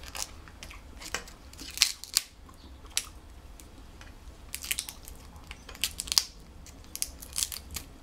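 Snow crab leg shells cracking and snapping as they are broken apart by hand to get at the meat: scattered sharp clicks and crackles, some in quick clusters.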